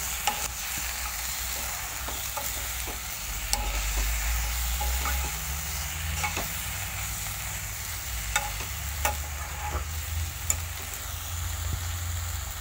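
Steel spoon stirring and scraping chicken and potato pieces in a non-stick wok, with occasional clinks of the spoon against the pan, over a steady sizzle as the curry dry-roasts without oil.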